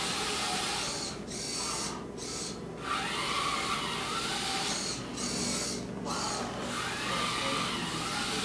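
Small DC gear motors of a wheeled Arduino robot kit whining as the robot drives, cutting out briefly several times and winding back up, the pitch gliding up and down as it stops and turns.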